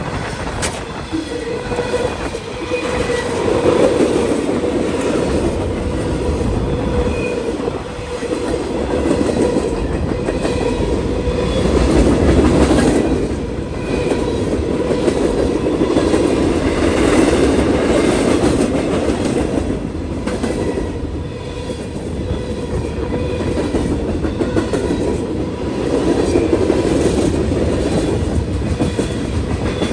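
Train cars rolling past, steel wheels clacking over the rail joints, with a steady ringing tone under the rumble that swells and eases every few seconds.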